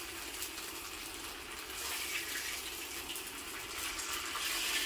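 Steady hiss of hot oil sizzling in a wok as the last fried tau kwa (firm tofu) cubes are scooped out with a metal spatula, with a few light scrapes of the spatula against the wok.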